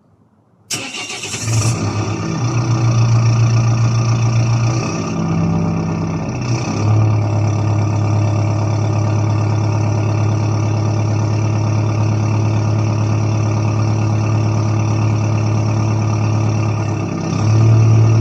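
Maxus V80's 2.5-litre turbo-intercooled diesel engine starting up about a second in, running at a raised idle for a few seconds, then settling into a steady idle. The engine speed rises briefly near the end.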